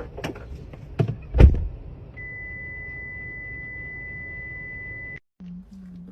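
Three sharp knocks or thumps in quick succession, the last the loudest. Then a steady high-pitched electronic beep held for about three seconds, cutting off suddenly. After a brief break a low hum takes over.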